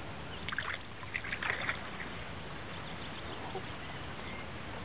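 A handful of short water splashes as a brown trout is let go over the side of a boat, about half a second to two seconds in, over a steady hiss of water and wind.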